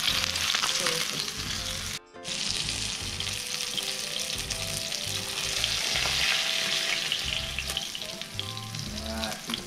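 Calico bass fillet frying in hot oil in a pan: a steady, crackling sizzle. It cuts out for a moment about two seconds in.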